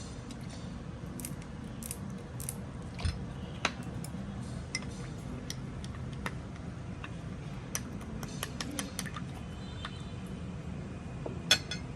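Scattered light clicks and clinks of kitchen utensils against dishes, over a steady low hum. There is a louder knock about three seconds in and a sharper clink near the end.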